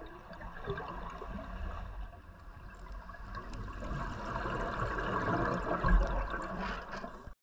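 Underwater scuba sound: the gurgle and rumble of a diver's exhaled regulator bubbles, swelling in the second half to a peak about six seconds in.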